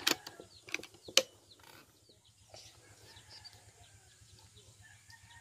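Air rifle firing: a sharp crack at the start and a louder one about a second in, with a smaller click between them. Faint bird calls follow in the background.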